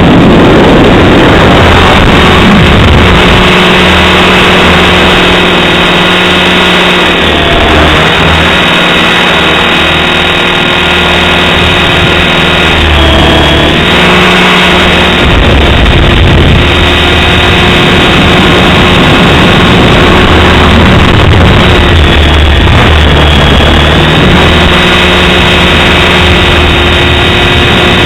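Align T-Rex 550 electric RC helicopter in flight: a steady motor and gear whine with rotor noise, its pitch holding nearly level at the governed head speed apart from brief dips twice. Heavy, uneven low rumble of gusting wind on the microphone runs beneath it.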